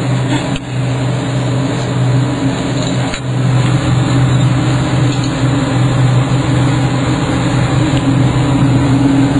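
Steady rush of air with a low hum from a laboratory fume hood's exhaust fan. It gets a little louder about three seconds in.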